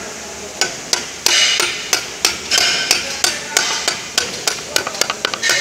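Hammer tapping the reverse gear pin into place in a Mercedes G221 truck gearbox housing: a run of sharp blows, about three a second, coming quicker near the end.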